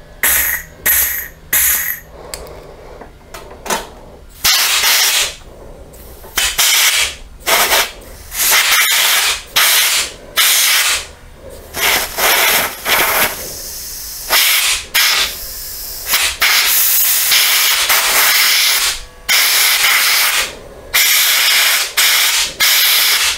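Compressed-air blow gun fired in repeated blasts into the brake-line port of a motorcycle rear brake master cylinder, trying to blow the piston out. There are about twenty bursts of hiss, most short and one lasting about three seconds. The piston does not budge.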